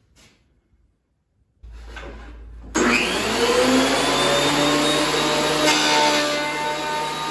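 Ridgid benchtop thickness planer starting up about three seconds in, its motor whine rising to speed and then running steadily. It briefly gets louder about six seconds in as a board is fed into it.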